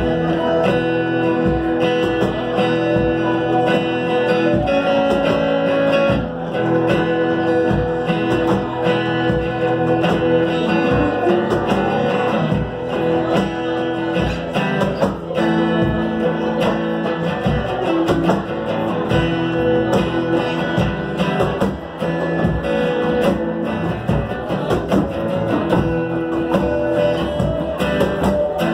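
Live instrumental music: strummed acoustic guitar and electric guitar over a steady beat of cajon hits, with held notes ringing throughout.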